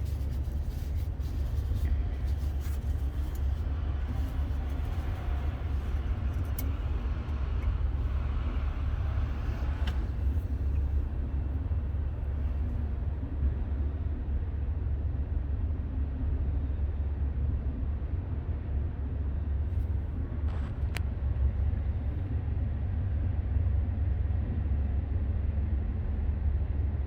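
A steady low rumble, with light clicks and clatter in the first ten seconds and a brief sharp tick about twenty seconds in.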